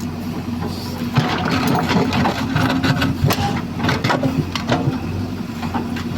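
An engine running steadily, with irregular mechanical clicks and knocks from about a second in.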